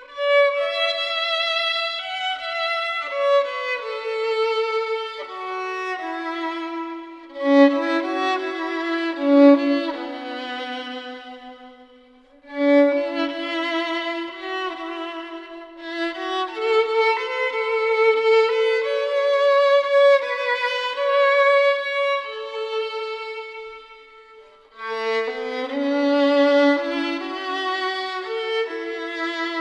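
Classical music on solo violin: a melody played in phrases, breaking off briefly twice.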